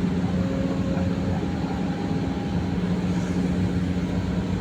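Excavator's diesel engine running steadily, a constant low hum.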